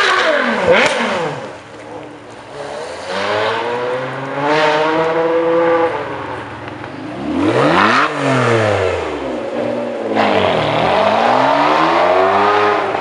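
Ferrari 599 GTO's V12 accelerating hard, its engine note climbing again and again as it shifts up through the gears.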